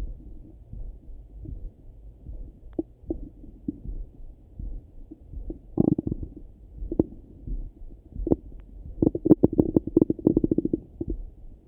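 Stomach gurgling heard through a stethoscope: a low rumble with scattered pops, then a quick run of gurgles about nine seconds in.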